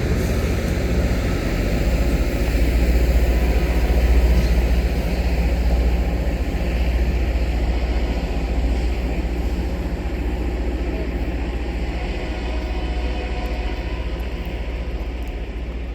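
Loram rail grinder train running past with a steady low rumble, slowly fading in the second half.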